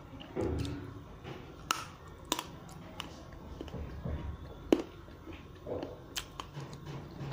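Frozen Dairy Milk chocolate being bitten and chewed close to the microphone: scattered sharp crunches and snaps, the loudest about two-thirds of the way in, with a muffled low thump just after the start.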